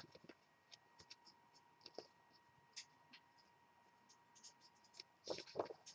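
Faint rustling and soft ticks of a large paperback book's pages being handled and turned, with a brief louder rustle about five seconds in.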